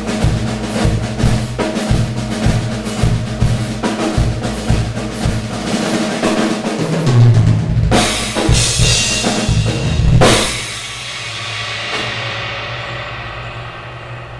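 Acoustic drum kit played in a fast improvised solo, with rapid bass drum and snare strokes and rolls. Cymbal crashes come at about eight and ten seconds in, and the last one rings out and fades slowly through the end.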